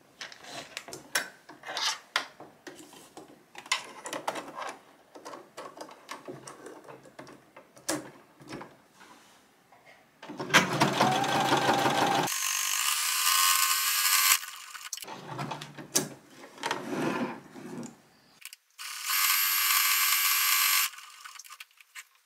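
Electric sewing machine stitching buttonholes in three loud runs in the second half, after several seconds of scattered clicks and knocks as the buttonhole foot and fabric are set up.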